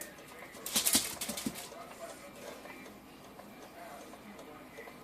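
A short run of quick clicks and scrapes about a second in, from spooning no-bake cookie mixture out of the pot onto wax paper. Only faint background sound follows.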